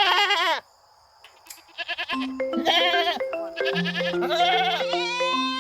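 Goats bleating several times, each bleat a wavering, pitched call, over soft instrumental music. The first bleat ends just after the start; a brief hush follows, and then the music and more bleats come in about two seconds in.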